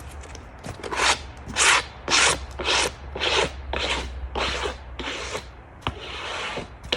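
Rhythmic rasping strokes over wood, about two a second, starting about a second in, like sawdust being brushed or wiped off a freshly milled walnut slab.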